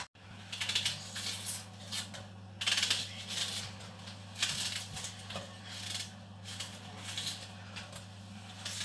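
Faint scattered clicks and rustles over a steady low hum.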